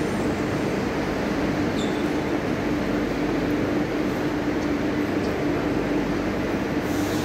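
Steady mechanical hum of a Barcelona Metro Serie 4000 train standing at the platform with its doors open, its onboard equipment running with a constant low tone. A short hiss comes near the end.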